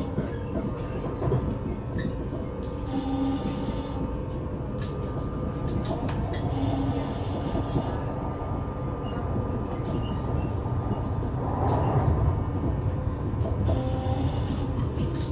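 NS ICNG electric intercity train running, a steady rumble of wheels and running gear on the track with a few faint steady tones, growing louder about twelve seconds in.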